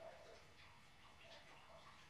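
Near silence: a faint background with a few short, faint chirps.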